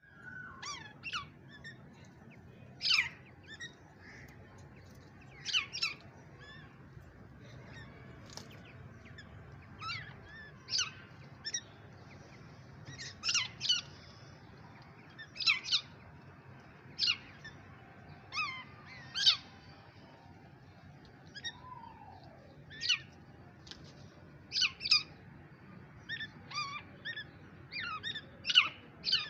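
Young francolin (teetar) chicks calling while sparring: short, high peeps that fall sharply in pitch, often in pairs, repeated every second or two.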